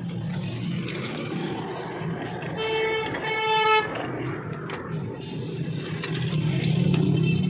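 A vehicle horn toots twice in quick succession, each toot under a second long, over a steady low hum. A few light metallic clicks sound from hand tools on the drum-brake parts.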